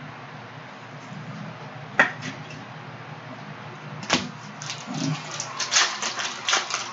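Trading cards and a pack wrapper being handled. A sharp click comes about two seconds in and another near four seconds, then a quick run of crinkles and card slides as the next pack is opened and sorted.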